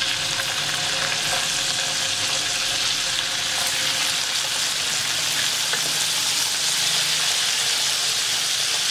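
Marinated chicken strips sizzling as they are laid into hot oil, butter and chopped garlic in a frying pan: a steady, high hiss of frying.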